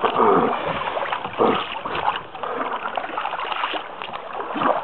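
Canoe paddles dipping and pulling through the water, splashing and gurgling with each stroke.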